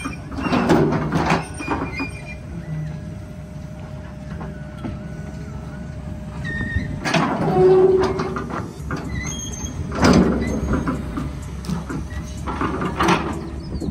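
Tracked hydraulic excavator's diesel engine running under load, with a faint steady hydraulic whine. Its steel bucket scrapes and grinds through sand and broken concrete four times, loudest about a second in, near the middle, and twice near the end.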